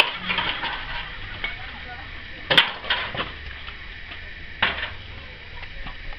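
Burnt debris and scrap metal clattering and crunching, with a few sharp clanks, the loudest about two and a half seconds in.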